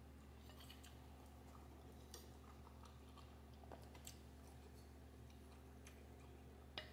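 Near silence: faint closed-mouth chewing of pasta, with a few soft fork clicks. The last click, near the end, is the loudest. A low steady hum sits under it all.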